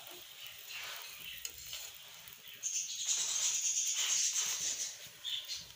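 Aloo paratha sizzling on a hot iron tawa as it is pressed and turned with a metal spatula; the sizzle grows much louder about two and a half seconds in and holds for a couple of seconds before easing off.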